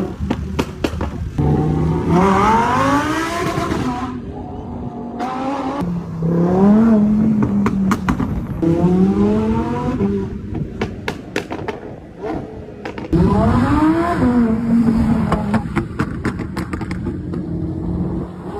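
Lamborghini engine revving hard several times, the pitch climbing and then holding. Sharp exhaust crackles and pops come between the pulls as the revs drop.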